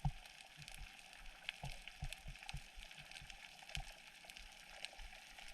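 Faint underwater ambience: scattered small, irregular clicks and crackles over a low hiss.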